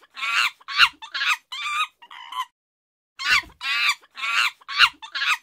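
Rapid run of short, high-pitched animal calls, several a second, that breaks off about two and a half seconds in and starts again with the same pattern after a brief pause.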